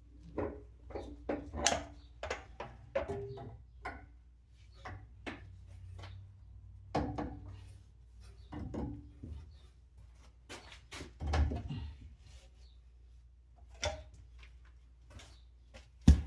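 Irregular clicks, taps and light rubbing of copper pipe, fittings and tools being handled, with a sharp knock just before the end.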